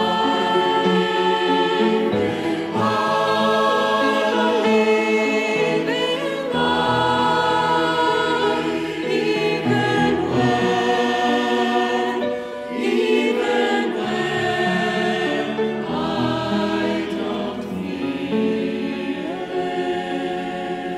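Mixed synagogue choir of men's and women's voices singing together in parts, in long held chords that change every second or two.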